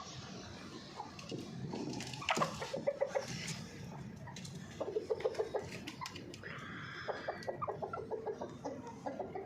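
Hens clucking in quick runs of short clucks, with a few sharp clicks or knocks about two to three seconds in.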